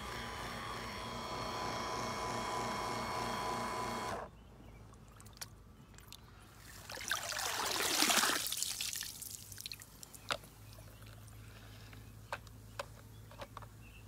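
Handheld rechargeable pool vacuum's motor running with a steady hum, cutting off suddenly about four seconds in. Halfway through, water pours out of the vacuum as it is lifted from the pool, followed by scattered drips.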